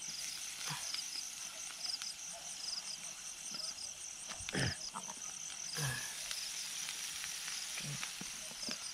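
Night insects chirping in a steady, fast-pulsing high trill over the faint hiss and sizzle of hotdogs grilling on charcoal, with a few short low voice sounds near the middle.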